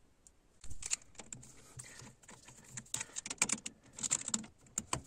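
Irregular light clicks and taps of metal on metal as the screws holding the motor head of a Speroni heating circulation pump are undone.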